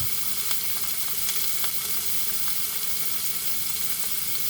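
Chicken pieces frying in a little oil in a very hot skillet: a steady sizzle with a few faint pops.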